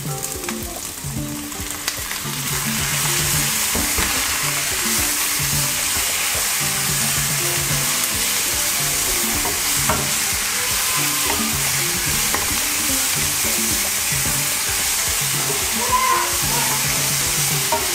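Salt cod, onions and bell peppers sizzling in a hot non-stick frying pan while a wooden spatula stirs them. The sizzle gets louder about two seconds in and then holds steady, with a few light clicks of the spatula.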